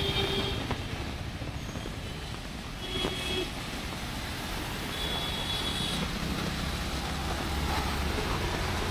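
Street traffic: vehicles passing with a steady low rumble and hiss. Short high tones come near the start, about three seconds in, and again around five seconds in.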